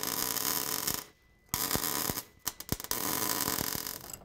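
MIG welding on a steel truck frame rail: the arc hisses and crackles in three runs, broken by short pauses as the welder stops and restarts, while a gap in the frame is welded shut.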